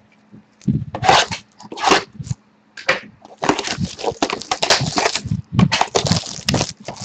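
Crinkling and tearing of plastic shrink-wrap and cardboard as a sealed box of trading cards is opened: a few short rustles, then dense crinkling from about three seconds in.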